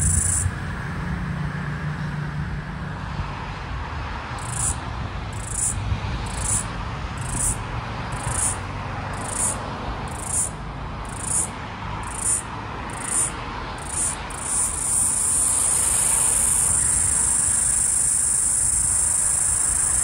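Male floury baker cicada (Aleeta curvicosta) calling. A high buzz stops within the first second; a few seconds later come about a dozen short high pulses at roughly one a second, which run into a continuous buzz about fifteen seconds in.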